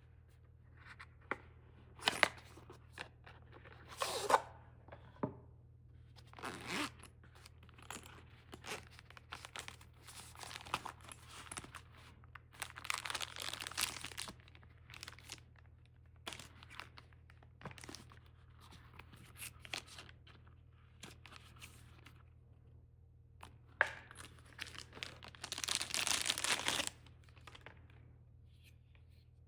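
Packaging being torn open and crinkled by hand, in irregular bursts mixed with sharp clicks and handling noises. There are longer stretches of tearing about thirteen seconds in and again near the end.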